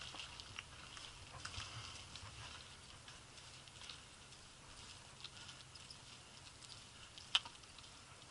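Faint, scattered clicks and ticks from a mountain bike climbing a rough paved lane, with one sharper click about seven seconds in.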